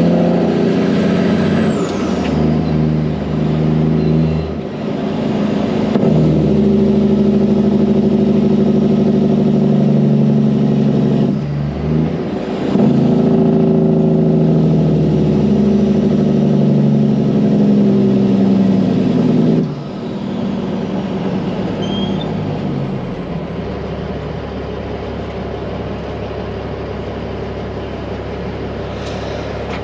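Peterbilt 379 semi truck's diesel engine running under load as the truck drives, its note breaking off briefly a few times. About twenty seconds in it drops to a quieter, steadier hum as the truck comes off the throttle.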